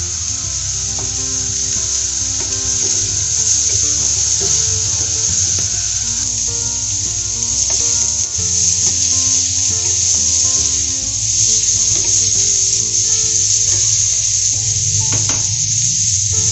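Diced onion and chili sizzling steadily in a nonstick frying pan over a gas burner, stirred now and then with a wooden spoon.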